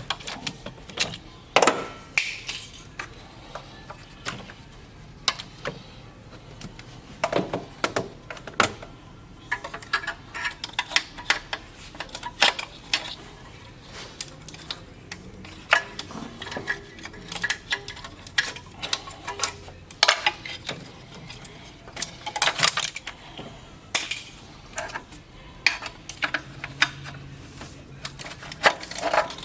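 Irregular clicks, clinks and clatters of metal tools and parts being handled.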